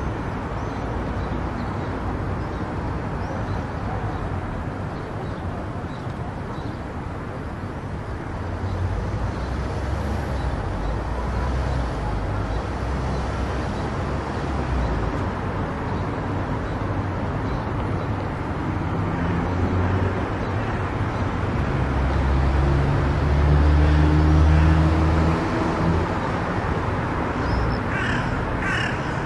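A car driving along a highway: steady road and tyre noise with a low engine hum, a deeper rumble swelling for several seconds past the middle. A few short high calls sound near the end.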